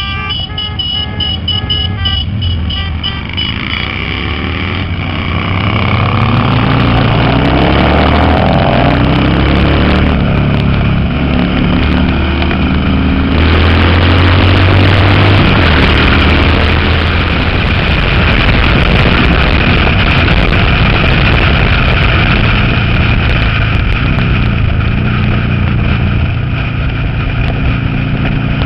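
Harley-Davidson V-twin motorcycles running on the road, heard close from the handlebars of one of them, the engine pitch climbing as the bike accelerates through the gears. Background music fades out over the first few seconds as the engine sound rises.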